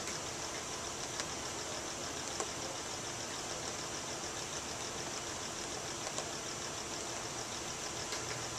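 Steady background hum and hiss with a faint high whine, broken by a few soft clicks about a second, two and a half and six seconds in as keys on a Willtek 9101 spectrum analyzer's keypad are pressed.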